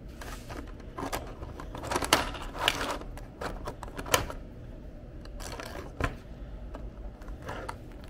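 Dial knob of a 3D-printed plastic capsule vending machine being turned, its printed gear giving a series of irregular plastic clicks and rattles as it dispenses a capsule, loudest about two to three seconds in.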